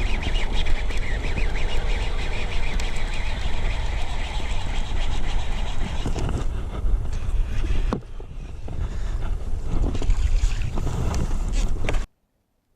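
Heavy wind rumbling on the microphone, with a sharp knock about eight seconds in. The sound cuts off abruptly near the end.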